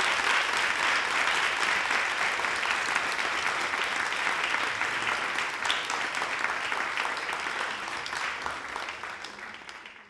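Theatre audience applauding steadily, fading out near the end.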